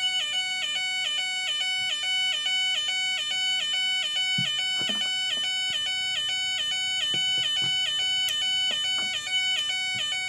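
Elenco AK-100 soldering kit's electronic siren sounding through its small speaker: a buzzy tone switching back and forth between two pitches about twice a second. A wrong-value resistor is still fitted, so it does not yet sound as designed.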